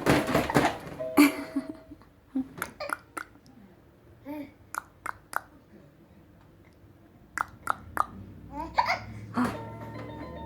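A baby laughing and babbling, then a run of short, sharp hiccups, a few at a time, with more babbling between them. Background music comes in near the end.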